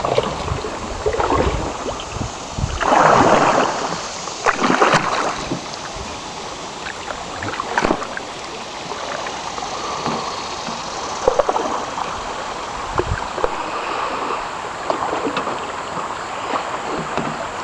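River water rushing and splashing around a canoe, with a few louder surges of water noise about 3, 5 and 8 seconds in.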